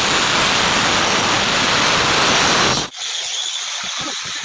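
Handheld power grinder cutting granite stone, running at a steady, loud, harsh pitch; it cuts off suddenly about three seconds in, leaving a quieter hiss with a few short voice sounds.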